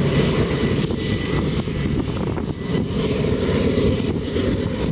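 Union Pacific diesel locomotive hauling a double-stack container train up a steep grade, its engine working hard with a steady, heavy drone.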